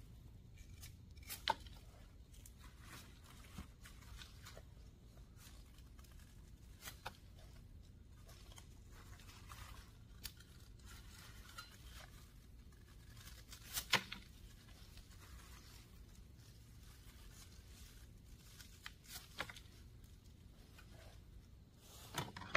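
Kitchen knife slicing the roots off green onions by hand, heard as a few short, sharp cutting snaps and rips at irregular intervals, the loudest about a second and a half in and again about 14 s in. Under them runs a faint steady low hum.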